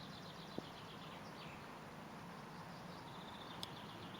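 Faint birdsong: small birds chirping in runs of short high notes, over a soft steady outdoor background, with a small click about half a second in and another near the end.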